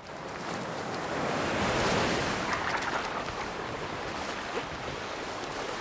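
Ocean surf washing up a sand beach: a wave's rush swells to a peak about two seconds in, then eases into a steady wash.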